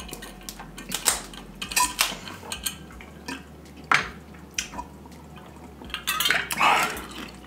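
Snow crab legs being broken apart by hand: scattered sharp cracks and clicks of shell, with a longer, louder crunching stretch about six seconds in.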